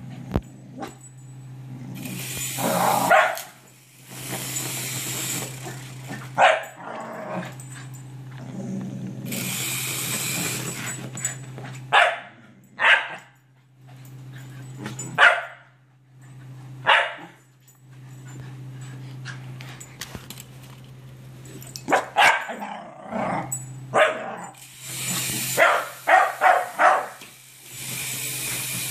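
Scottish terriers barking: single sharp barks every few seconds, then a quick run of barks near the end, over a steady low hum and stretches of hiss.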